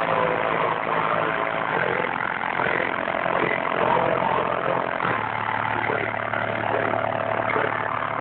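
Bass-heavy rap music played loud through a car audio system's subwoofers, with sustained deep bass notes that step lower about two seconds and five seconds in.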